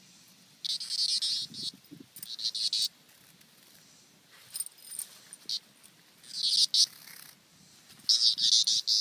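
A locust pinned by a white miniature schnauzer's paws and muzzle, buzzing in loud, high-pitched bursts, about five times, each under a second long, with quiet gaps between: the insect's distress buzzing as the dog paws and mouths it.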